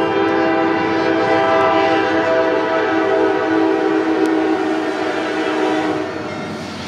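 Diesel locomotive's multi-chime air horn sounding one long, steady blast that stops about six seconds in, leaving the rumble of the passing train.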